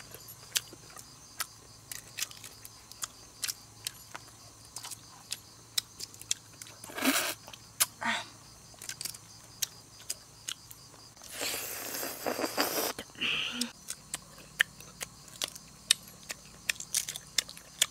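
Cooked eggs' shells being cracked and peeled by hand: many small sharp clicks, with a longer rustling noise a little after the middle.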